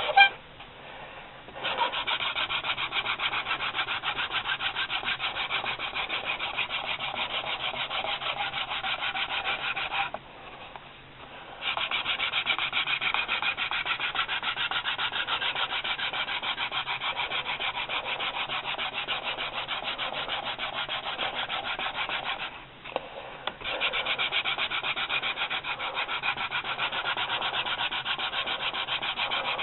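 Wooden hand-drill spindle spun between the palms, grinding into a two-stick baseboard to build a friction-fire ember: a steady, fast rasping. It stops briefly three times: about a second in, about ten seconds in, and near twenty-three seconds.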